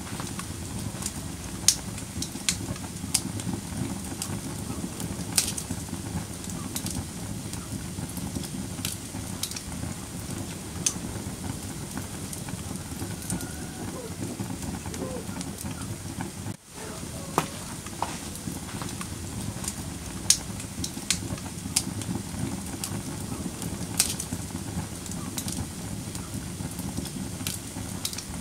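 Wood fire in a fireplace crackling, with irregular sharp pops over a steady low rush of burning. The sound drops out for an instant a little past halfway.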